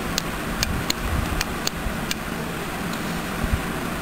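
Small tactile push buttons on a breadboard clicking as they are pressed to steer a game, about seven sharp clicks at irregular intervals over a steady background hiss.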